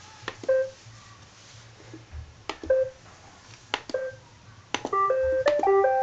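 iRobot Roomba robot vacuums being switched on: three button clicks, each followed by a short electronic beep, then near the end a quick run of stepped electronic notes as the Roombas play their start-up tune.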